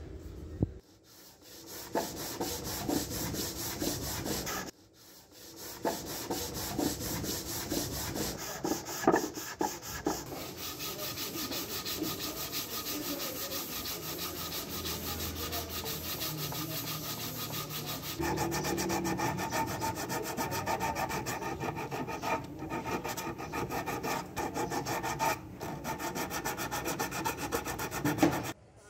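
Sandpaper rubbed by hand back and forth along a curved wooden table leg in quick scratchy strokes, wearing away the old finish.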